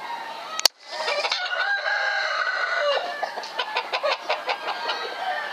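A sharp click, then about four seconds of high, broken, clucking animal calls with a quick rattling stretch near the end.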